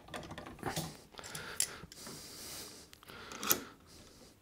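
Wooden jig parts being handled and set in place on a bench: light knocks, clicks and scrapes, with a few sharper clicks spread across the moment.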